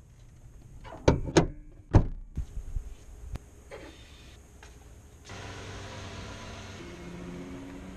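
A few heavy thunks, like a vehicle door being shut, about a second in. Then, from about five seconds in, a steady low hum of a vehicle running.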